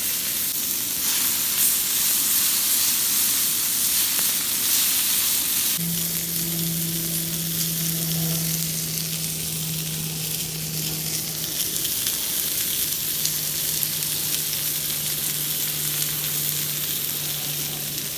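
Food frying in hot oil, a steady sizzle. A low steady hum joins in about six seconds in and continues alongside it.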